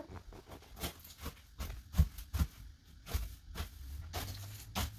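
Broom sweeping a bathroom floor into a corner: a run of short, irregular bristle strokes, with a heavier knock about two seconds in.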